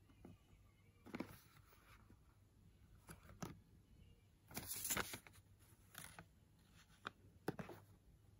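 Faint handling of paper and cardboard packaging: a few light taps and clicks, with a brief rustle a little past halfway, against near silence.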